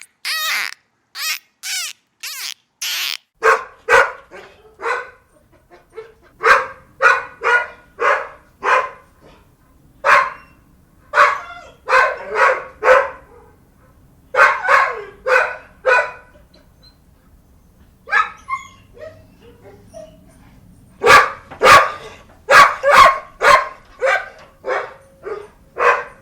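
A dog barking repeatedly, in runs of three to five barks with short pauses between them. The barking is preceded in the first few seconds by a series of short, high-pitched calls from another animal.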